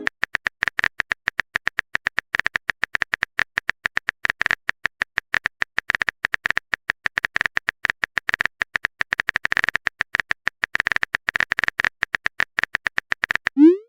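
Typing sound effect: rapid, even keyboard clicks, several a second, as a chat message is written out.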